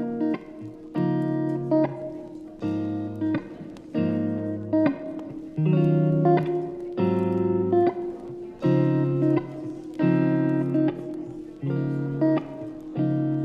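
Background music: guitar chords played in a slow, even rhythm, about one chord a second.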